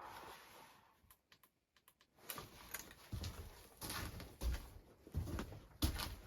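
A run of irregular knocks and clatters, some with a dull thud, starting after a short lull about two seconds in.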